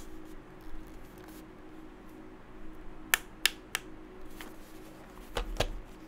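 Handling of an HHKB Professional 2 keyboard's plastic case: three sharp clicks about a third of a second apart, then near the end a soft thud with a click as the keyboard is set down on a cloth desk mat.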